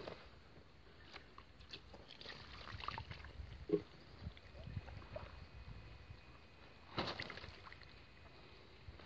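Faint rustling and scattered knocks as a large mirror carp is handled on an unhooking mat, with a soft thump about a third of the way in and a sharper knock near the end.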